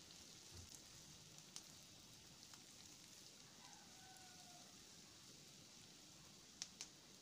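Faint, steady sizzle of shredded cabbage, capsicum and onion frying in oil in a frying pan. A few light clicks come from a wooden spatula stirring against the pan, two of them close together near the end.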